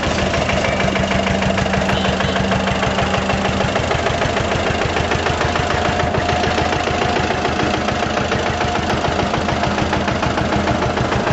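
An engine idling steadily, with a fast, even pulsing throughout.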